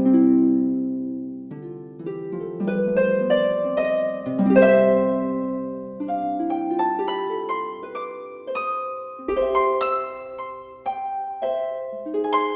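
Background music: a harp-like plucked-string melody of notes that ring and fade one after another.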